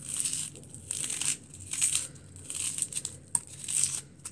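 Dry onion skin crackling and tearing as an onion is peeled by hand, in a run of short crinkly bursts about every half second, with one sharp click a little past three seconds in.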